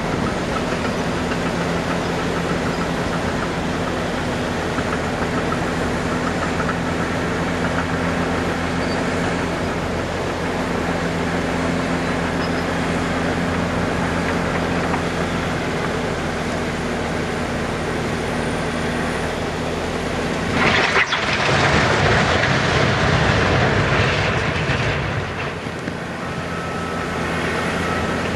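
Dump truck's diesel engine running steadily with the box raised, then about 20 seconds in the load of riprap boulders slides out of the box and crashes onto the ground for about four seconds, after which the engine runs on.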